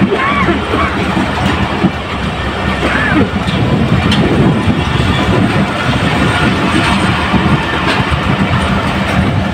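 Pakistan Railways passenger coaches rolling past close by as the train pulls into the station, wheels rumbling and clattering on the rails.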